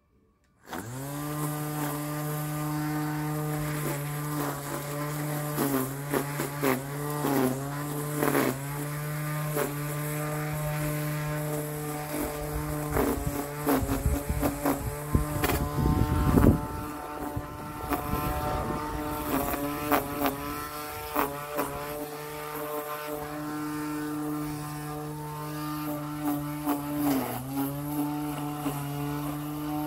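Handheld string trimmer starting up about half a second in and running with a steady whine, its pitch dipping briefly as the line bites into the grass. Near the middle comes a rougher, louder stretch of cutting with rattling strikes.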